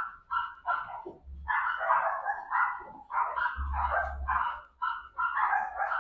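Several puppies yapping and barking in quick, overlapping bursts as they play-fight.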